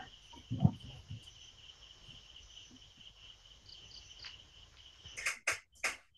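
Crickets chirping steadily in the night-time CCTV audio. A low thump comes about half a second in, and three short rushes of noise come near the end.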